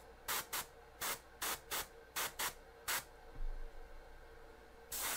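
Gravity-feed airbrush spraying white paint in short hissing bursts, about eight quick pulls of the trigger in the first three seconds, then a pause and one more burst near the end, building up a white highlight over primer.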